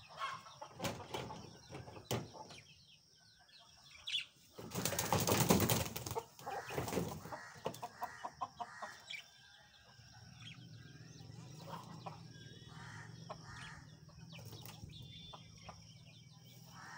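Young chickens flapping their wings, loudest in one burst of a couple of seconds near the middle as they fly up out of a box, with a few short clucks and cheeps around it.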